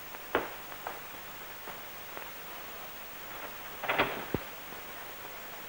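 Steady hiss broken by a few light knocks: one faint knock just after the start, then a short clatter of knocks about four seconds in and a single knock just after it.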